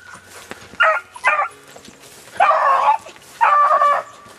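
Beagle baying on a rabbit's track: two short yelps about a second in, then two longer drawn-out bays.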